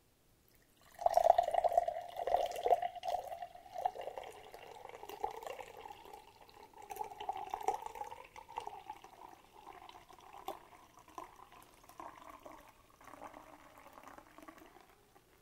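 Pomegranate sikhye poured in a thin stream from a plastic bottle into a glass mug. It starts about a second in, splashing loudest over the first few seconds, then goes on as a quieter steady trickle as the mug fills.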